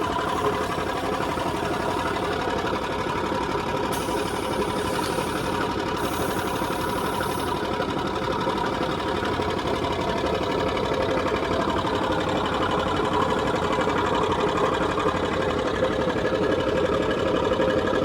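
Motor-driven animal-feed machine running steadily with a fast, even mechanical rattle. A faint high hiss joins briefly about four seconds in.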